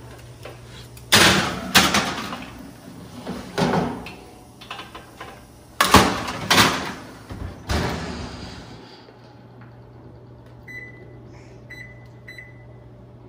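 Metal baking trays clattering onto oven racks and the oven door knocking shut, several sharp knocks in the first eight seconds. Then an electronic range's control panel beeps a few times as the broil is set.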